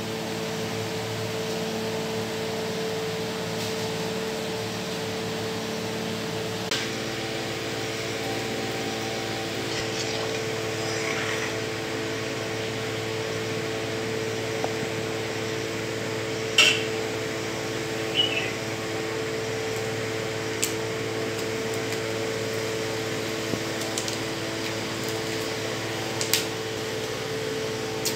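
Steady machine hum, like a running fan, with a faint constant whine whose pitch shifts slightly about seven seconds in, and a few light clicks and taps.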